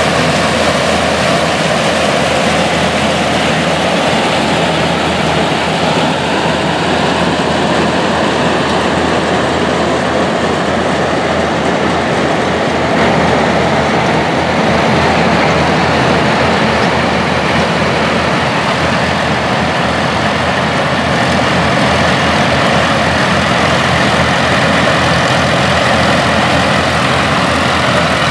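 Vintage International Harvester tractors running steadily while harvesting standing corn with mechanical corn pickers: a continuous engine drone mixed with the running noise of the picker machinery.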